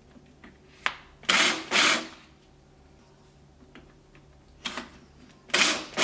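Cordless drill spinning a barrel trimmer against the end of a walnut pencil blank in short bursts, two about a second in and two more near the end, each pair preceded by a sharp click. The cutter is squaring the blank's end and trimming the glued-in brass barrel flush with the wood.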